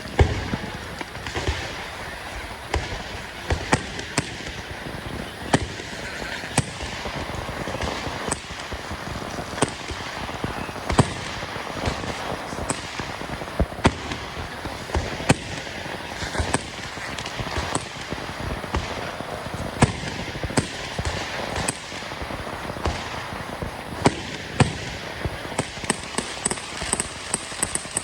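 Fireworks going off: sharp bangs at irregular intervals, sometimes several in quick succession, over a continuous crackling background, with a run of high crackles near the end.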